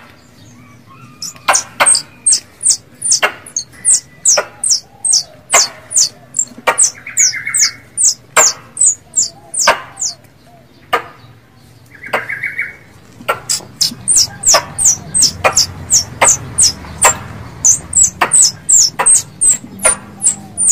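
Squirrel calls played as a hunting lure: a fast run of sharp, high chirps, each a click that drops in pitch, about two to three a second, with a brief lull about halfway through.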